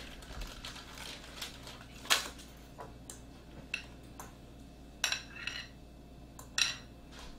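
A fork clinking and scraping against a glass mixing bowl as filling is scooped out, a string of separate light clinks with the sharpest about two seconds in.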